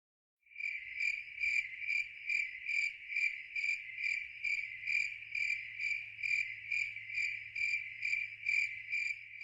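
A cricket chirping steadily, a regular, even chirp about three times a second, starting about half a second in.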